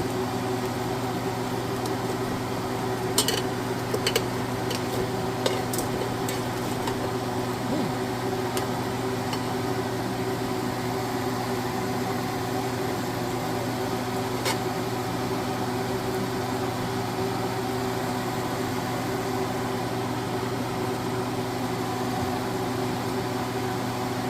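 Countertop air fryer running with a steady fan hum, with a few light clicks and clinks about three to six seconds in and once more near the middle.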